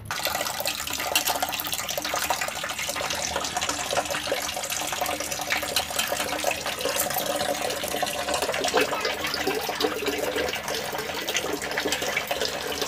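Water sloshing and splashing in a steel pot as raw rohu fish pieces are washed by hand, with many small knocks and clinks against the pot.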